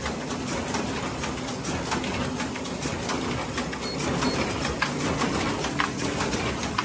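KAS 465HS envelope inserter running in production, set to about 3,060 envelopes an hour: a steady mechanical clatter of feeders and collating track with a low hum and many quick clicks.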